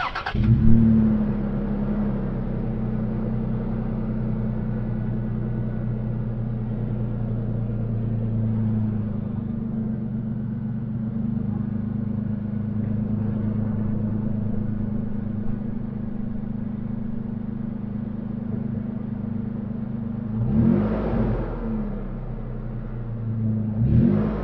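2020 Toyota 4Runner TRD Pro's 4.0-litre V6 idling through its TRD side-exit exhaust with a steady low rumble, then revved twice in short blips near the end, the pitch rising and falling each time.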